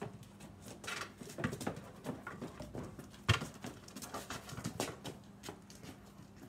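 A Doberman-shepherd cross dog nosing and pawing a rubber basketball around on concrete paving: scattered taps and scuffs of paws, feet and ball, with one sharp thump about halfway through.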